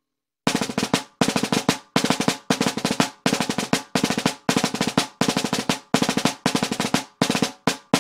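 Baldassare M1455LR stainless steel 14 x 5.5 inch marching snare drum played with wooden sticks: short bursts of quick strokes, repeated about every three quarters of a second, each burst stopping dead. It starts about half a second in.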